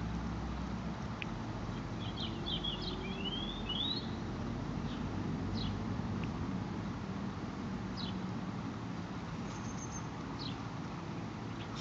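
Small birds chirping: a quick run of short rising chirps about two seconds in, then single chirps now and then, over a steady low outdoor rumble.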